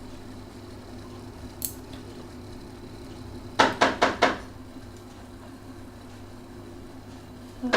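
Knocking on a door: four quick raps about halfway through, over a low steady hum.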